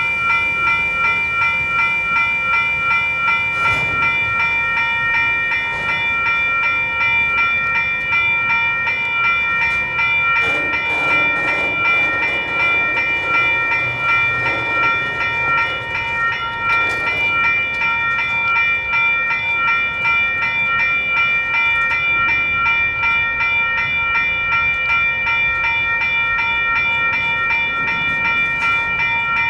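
WCH electronic railroad crossing bells ringing rapidly and steadily, several bright tones pulsing together, over the rumble of a freight train at the crossing.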